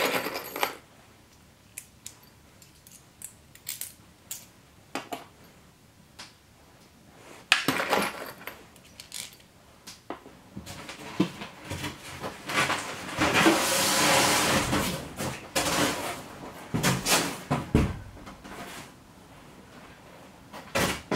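Loose metal screws rattling and clinking in a plastic box as a hand sorts through them, with small clicks as washers are fitted onto the screws. There are two longer stretches of rummaging, one about seven seconds in and a louder one from about ten to sixteen seconds.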